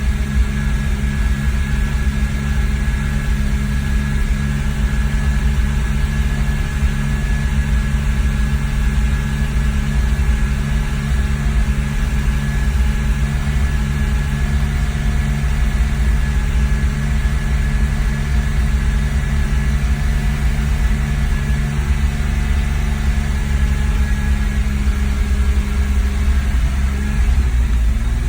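2001 BMW E46 330Ci's 3.0-litre inline-six running with the accelerator floored, its pitch holding flat instead of climbing. The engine will not rev past about 3,000 rpm and has almost no power, and it runs with the MAF sensor unplugged.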